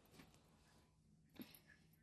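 Near silence: room tone, with one faint short sound about one and a half seconds in.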